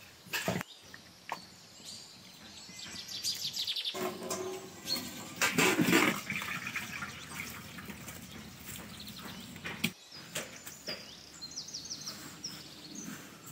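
Water and parboiled potato slices poured from a steel bowl into a perforated steel colander, splashing and draining, loudest about halfway through. Birds chirp at times.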